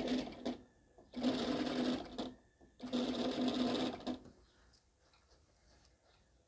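Industrial single-needle lockstitch sewing machine stitching a seam in short runs: three bursts of about a second each with brief stops between, the last ending about four seconds in.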